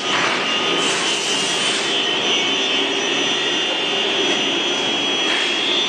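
A machine running steadily, with a rushing air noise and a constant high-pitched whine.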